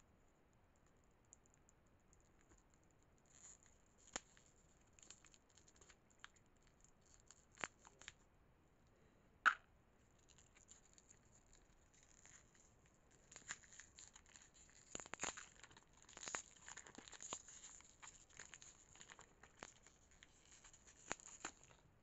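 Faint snipping and crinkling of a plastic lollipop wrapper, first cut with small scissors in scattered clicks with a sharper one about halfway, then peeled off by hand in a denser run of crinkling and tearing through the second half.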